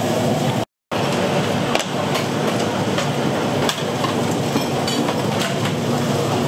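Busy restaurant kitchen noise: irregular knocks and clatter over a steady hiss. The sound drops out completely for a moment just under a second in.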